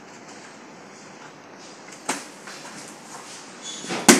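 Two knocks on a large wall tile as it is pressed into place, a light one about two seconds in and a louder, sharp one near the end, over a steady background hiss.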